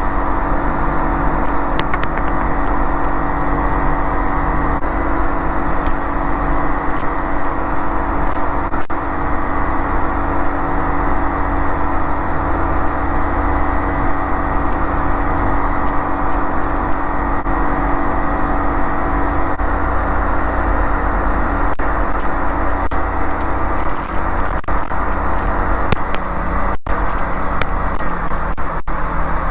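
Light aircraft's piston engine and propeller running steadily at power in flight, heard inside the cockpit as a loud, even drone with steady engine tones over dense noise.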